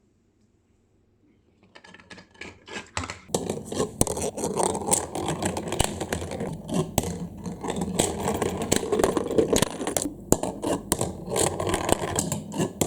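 Plastic marble-run toy clattering: balls and plastic pieces rattling and clicking continually. The sound starts about two seconds in, after near silence.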